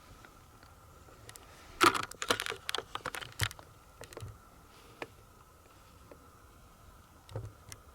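Quick run of sharp clicks and taps from gear being handled, loudest about two seconds in, followed by a few single clicks, over a faint steady high tone.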